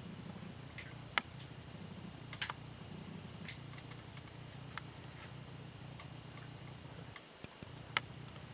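Irregular sharp taps and clicks, about a dozen spread unevenly, from birds pecking at a feeder, over a steady low hum.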